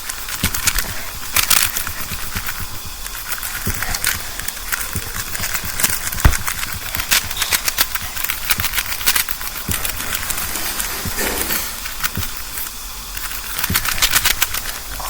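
Plastic phantom Rubik's cube being slapped against a hand and handled: many irregular clicks and taps, with one sharper knock about six seconds in.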